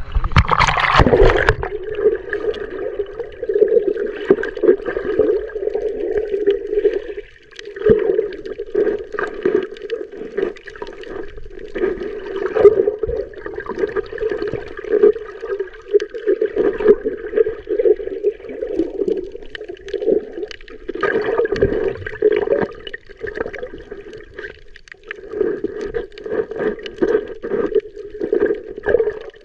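A splash as the camera goes under water, then muffled underwater sound of shallow sea picked up through the camera: a steady, fluttering gurgle and slosh.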